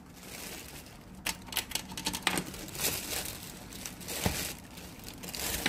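Plastic snack packets crinkling and rustling as boxes and bags are shifted on a table, with scattered light knocks and a duller thump about four seconds in.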